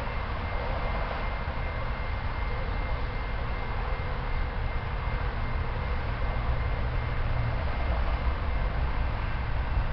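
Steady low rumble and hiss of a distant freight train approaching, slowly growing louder toward the end.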